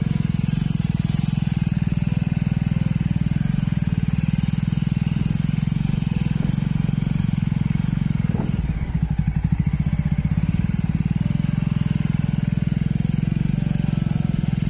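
Motorcycle engine running steadily, heard from on the bike while riding a rough dirt track. The engine note dips briefly a little past halfway, then picks up again.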